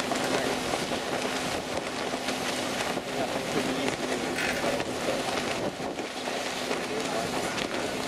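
Steady engine drone with a constant low hum, mixed with wind and rushing water, as heard on the deck of a boat under way, with faint voices in the background.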